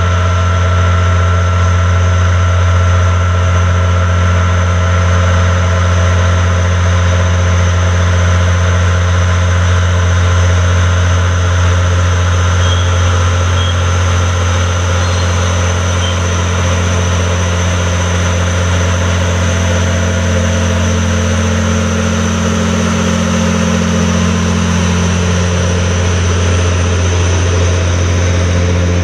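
Diesel shunting locomotive's engine droning steadily with a deep hum as it hauls a long train of open freight wagons slowly past.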